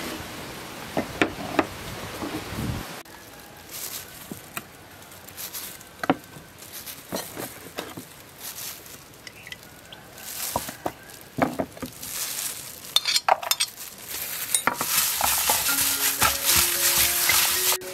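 Glass seasoning jars clink on a tabletop, followed by scattered small knocks in a stainless-steel bowl. About fifteen seconds in, a hand in a plastic glove starts mixing ground pork in the steel bowl, a steady dense wet squishing and scrunching.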